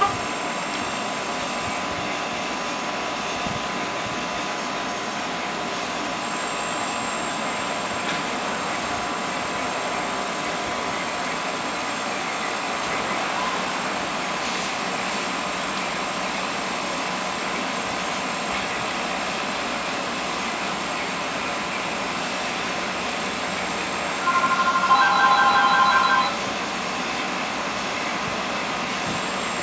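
Steady mechanical hum with a faint whine, like a running fan or air-conditioning unit in a small room. About 24 seconds in, a brief warbling electronic tone sounds for about two seconds over it.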